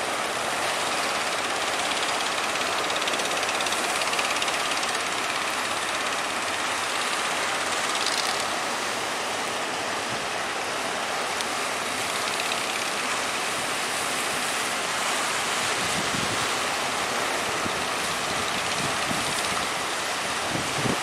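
Steady rushing noise of strong wind and sea, with a few low buffets of wind on the microphone near the end.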